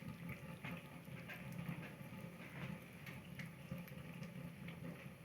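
Kittens eating, small wet chewing and lapping sounds coming in irregular little clicks, over a low steady hum.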